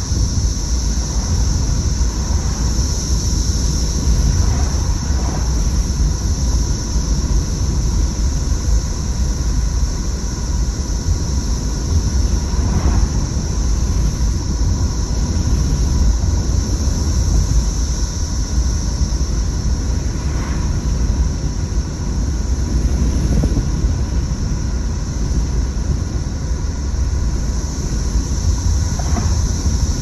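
A chorus of periodical cicadas, a steady high-pitched drone, under the low rumble of a car driving along a road.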